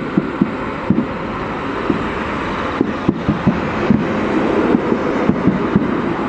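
Aerial firework shells bursting in rapid succession in a finale barrage: many sharp bangs, several a second, over a continuous low rumble of overlapping booms.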